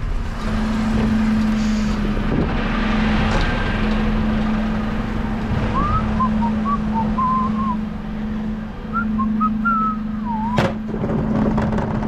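Dennis Elite refuse truck running with a steady low hum that drops out briefly a few times. Two short runs of whistled notes sound over it around the middle, and a single sharp knock comes near the end.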